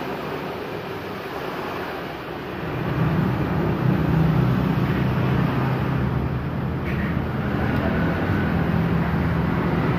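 A motor vehicle engine running steadily, getting louder about three seconds in.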